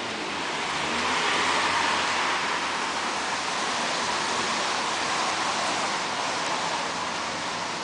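A steady rushing noise that swells over the first second or two and then holds.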